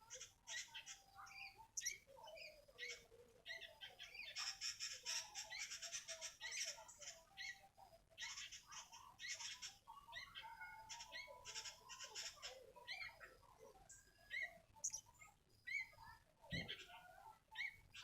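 Sooty-headed bulbul (kutilang) chirping and calling, with several bursts of rapid high trills. A brief low thump near the end.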